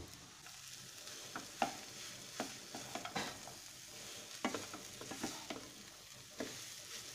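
A spatula stirring and pressing boiled potato into a mixture of grated beetroot and carrot in a frying pan, with irregular scrapes and taps against the pan over a faint frying sizzle.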